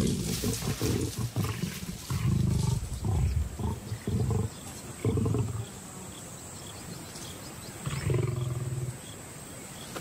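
Lions growling in a run of short, low growls, with another growl about eight seconds in: a squabble over a carcass as a young male pushes in on the lionesses feeding at their kill.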